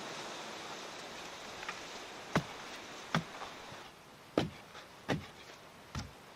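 Five sharp knocks, roughly a second apart, over a steady hiss that drops a little partway through.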